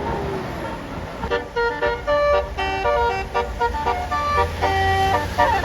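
Bus 'telolet' Basuri multi-tone musical horn playing a fast melody of short notes from about a second in, over the low rumble of the bus.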